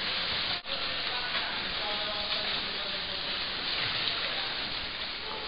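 Swimmers splashing in a pool: a steady wash of churning water, with faint distant voices. There is a brief dropout about half a second in.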